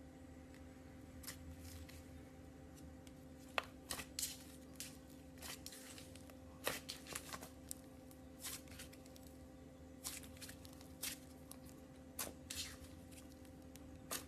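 Slime being squeezed and worked by hand, giving irregular clusters of short crackling pops and squishes over a faint steady hum.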